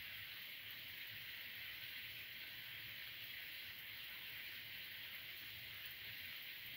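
Faint, steady sizzle of oil around chickpea-flour fritters frying in a cavity pan.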